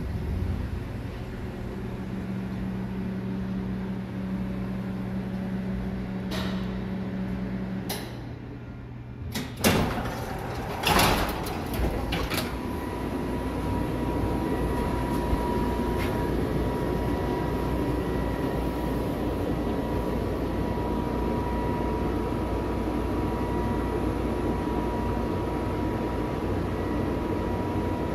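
Airport monorail: a steady low hum, then the sliding platform doors opening with a few sharp knocks and clunks about ten seconds in, followed by the steady running noise of the car with a thin high whine.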